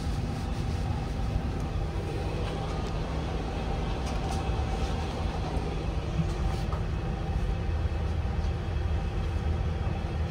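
Steady low drone and hum of a powered-up Airbus A350 cockpit on the ground, its air-conditioning and equipment fans running, with a few faint clicks.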